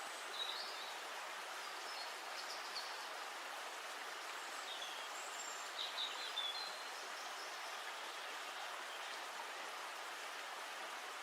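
Birds chirping in short, high calls every few seconds over a steady, even rushing noise.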